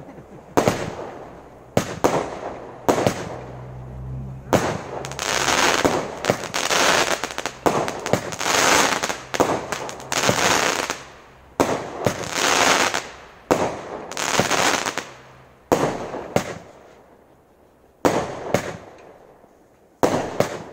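A Firework King '666' consumer firework barrage firing a run of shots, one sharp bang after another about every one to two seconds. Through the middle the bangs run into longer rushing bursts of noise. Toward the end there are quieter gaps between the shots.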